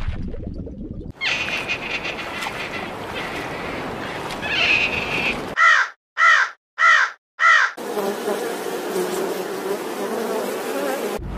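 Common raven giving four short calls about half a second apart, followed by a steady insect buzz.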